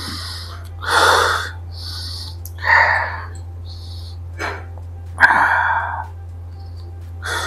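A man's sharp exhales and hisses through the teeth, about seven in a row roughly a second apart, reacting to the burn of a gulp of strong whisky, which he finds a bit hard. A steady low hum runs underneath.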